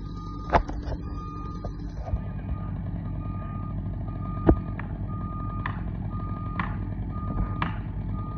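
A vehicle's reversing alarm beeping steadily about once a second over a low engine rumble, with two sharp knocks, about half a second in and about four and a half seconds in, and lighter knocks about once a second after that.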